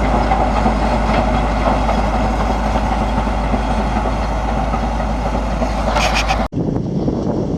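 Massey Ferguson 375 tractor and round baler running steadily at work, with a few quick rattles near the end. The sound then changes abruptly to a thinner, less rumbling mix of the same kind of machine noise.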